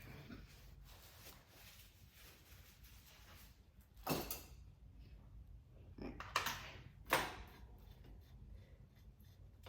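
Hand work on a bicycle crank's bearing parts, with short scraping rubs of metal parts being handled and threaded on: one about four seconds in, a couple about six seconds in, and one about seven seconds in. Between them there is a low steady room hum.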